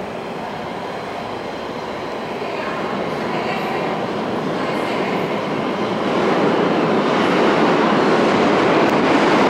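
R46 subway train pulling out of the station, its running noise growing steadily louder as it gathers speed.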